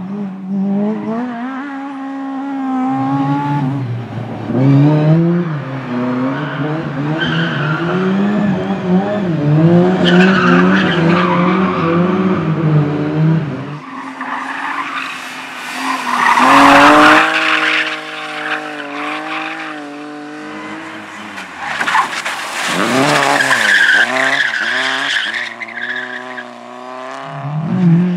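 Competition cars being driven hard, their engines revving up and down, with repeated bursts of tyres squealing and skidding.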